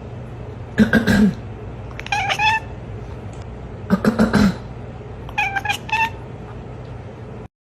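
Domestic cat meowing: four separate calls about a second and a half apart, two of them clear, pitched meows and two rougher and noisier, over a steady low hum.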